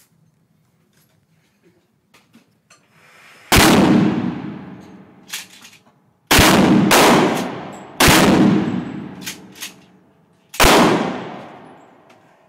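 A series of gunshots, unevenly spaced over several seconds, each trailing off in a long echo, with a few faint metallic clicks between shots.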